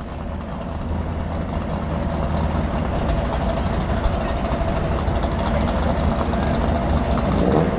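Muscle car engines idling with a steady low rumble at the starting line, slowly getting louder.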